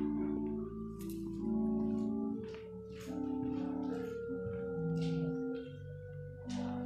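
Slow sacred keyboard music: held chords changing every second or so over sustained bass notes. Several brief rustling noises sound over it.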